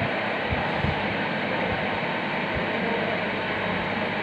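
Steady hiss of background noise, with a few soft low knocks of chalk writing on a blackboard.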